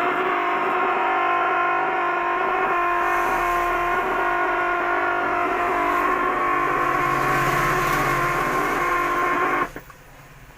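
CRT television speaker giving out a loud, steady hum-like buzz, the humming fault in the set's TDA2003 sound-amplifier circuit. It cuts off suddenly near the end.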